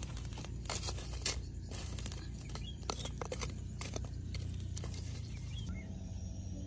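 Charcoal embers crackling and popping in irregular sharp clicks under a green coconut roasting in the fire, over a low steady rumble. The crackling stops near the end.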